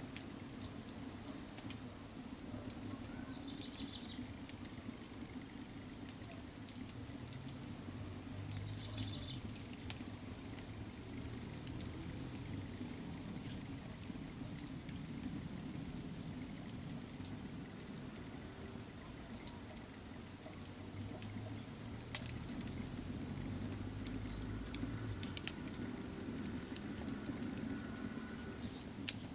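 Cherry-wood campfire crackling, with irregular sharp pops and snaps; the sharpest snaps come about three-quarters of the way through.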